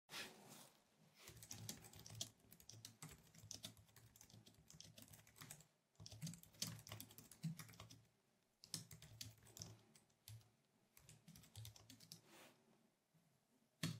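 Computer keyboard typing: faint, quick keystrokes in runs with short pauses, and one sharper key press near the end.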